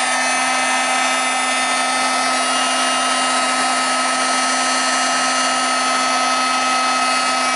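Embossing heat gun running steadily, blowing hot air to melt embossing powder on card: a loud, even rush of air with a steady motor hum.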